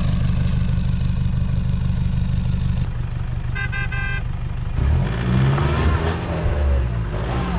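Straight-piped Toyota Fortuner's engine running with a rattling exhaust rumble, a "trrr", revving up and down from about five seconds in as the SUV tries to drive out of deep snow. A short toot, like a horn, sounds about three and a half seconds in.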